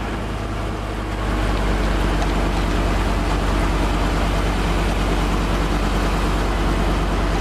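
A steady engine drone running evenly, under a loud, even rush of wind noise on the microphone that swells about a second in.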